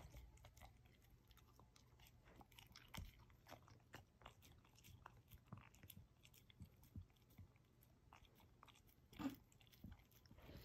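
German shepherd puppy mouthing and chewing a piece of banana: faint, irregular wet smacks and clicks of its jaws and tongue.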